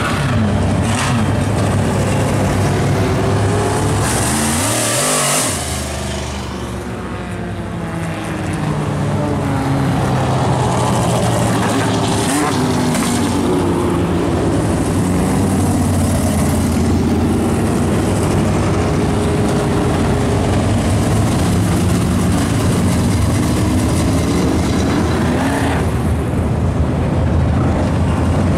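Several dirt-track race car engines running at low speed as the cars roll past on a slow parade lap, their overlapping notes rising and falling in pitch as they blip the throttle. One car passes close about four seconds in, and the sound dips briefly before building again.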